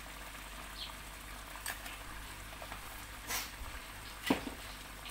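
Coconut-milk gravy simmering and sizzling in a wok, a steady hiss, with a few short clicks and one sharper knock about four seconds in.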